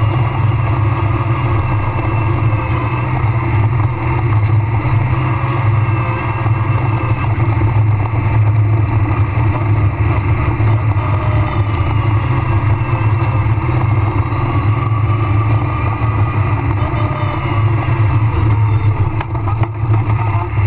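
Rally car at speed on a dirt and gravel stage, heard from inside the cockpit: a loud, steady engine note with tyre and road noise from the loose surface, and a brief dip near the end.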